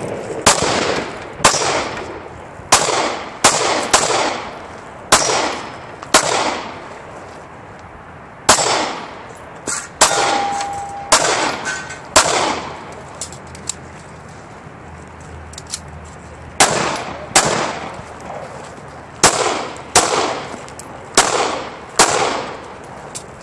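Semi-automatic pistol firing during a USPSA Production stage run: about twenty sharp shots, mostly in quick pairs, each trailing off in an echo. There is a break of about four seconds in the middle of the string.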